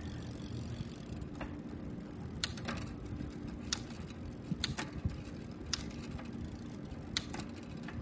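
Bicycle drivetrain turned by hand: the chain running over the rear cogs with a steady whir and scattered sharp clicks from the shifter and rear derailleur as a gear change is tested. The rear derailleur's cable tension is being adjusted with the barrel adjuster because the shift does not yet come up cleanly.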